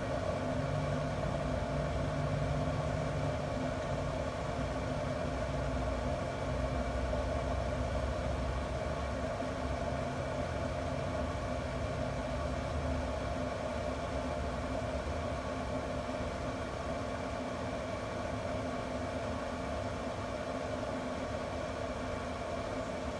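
Pellet grill's combustion fan running with a steady hum, over a low rumble that is stronger in the first half and then eases.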